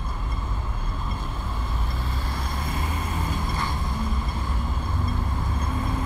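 Field recording of a busy city street intersection: steady traffic rumble and engine noise, pretty noisy throughout. There is one short sharp click about three and a half seconds in.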